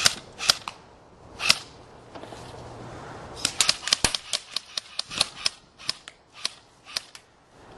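Airsoft electric guns firing single shots, each a sharp snap. There are three shots in the first second and a half, then a steady string of shots at about three a second for nearly four seconds.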